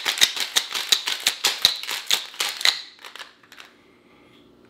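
Ice rattling and knocking inside a stainless steel cobbler cocktail shaker shaken rapidly back and forth, about six knocks a second. It stops just under three seconds in, with a few fainter knocks after.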